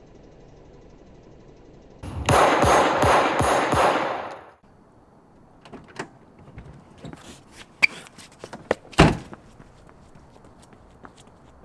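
Rapid burst of handgun gunfire, about five shots a second for some two and a half seconds, cutting off sharply. Then scattered clicks and knocks, the loudest one about nine seconds in.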